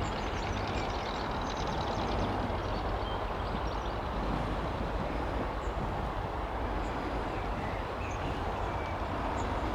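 Steady, even low rumbling background noise outdoors, with no clear single event.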